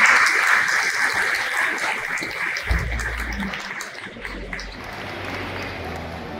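An audience applauding, the clapping slowly dying away. About halfway through, a pipe organ comes in with low sustained notes.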